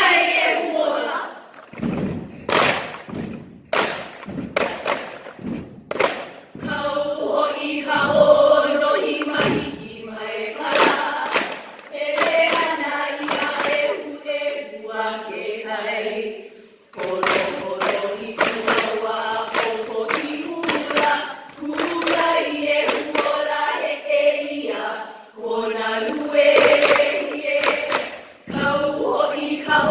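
Group of women chanting a Hawaiian hula chant in unison, with strikes of ipu heke (double-gourd drums) beating the time. For a few seconds near the start the gourd strikes sound almost alone before the voices come back in.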